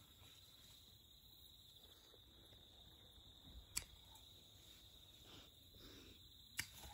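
Near silence: a faint, steady, high-pitched drone, broken by two sharp clicks, one a little past halfway and one near the end.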